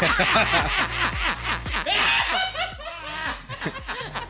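Several people laughing together, a woman's laugh among them, in quick repeated pulses.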